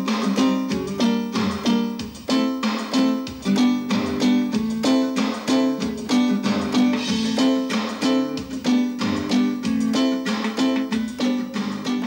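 Synthesizer keyboard playing a steady, rhythmic pattern of short notes, part of a song's rhythm track being built up.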